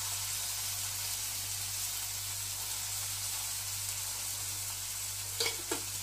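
Sliced onions, green chilies and garlic sizzling steadily in hot oil in a wok, with two light knocks near the end.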